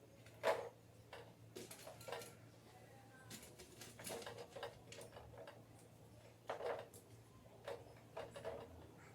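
Clothespins being clipped on one after another: faint short clicks and clacks at uneven intervals, the loudest about half a second in.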